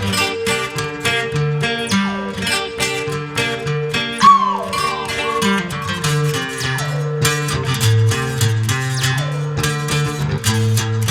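Instrumental guitar passage with no singing: regularly plucked and strummed guitar chords over a bass line that steps from note to note. A bright, bending lead note stands out about four seconds in.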